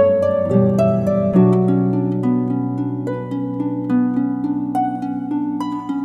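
Gentle instrumental background music: quick plucked notes over held chords that change every few seconds.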